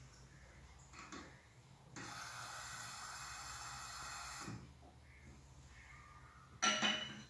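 Tap water running from a bathroom sink faucet into a small glass jar for about two and a half seconds, then stopping suddenly. Near the end, a short louder breathy sound.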